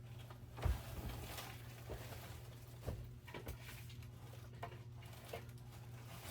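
Encon Casanova ceiling fan running on its low speed, quiet, with a steady low hum, and a few light scattered clicks and knocks.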